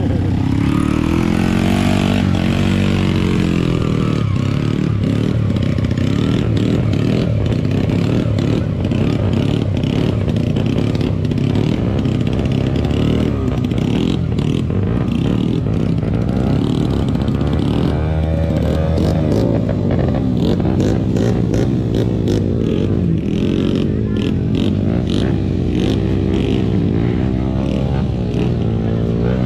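Dirt bike engines revving hard as they push through deep mud, the pitch climbing and falling again and again.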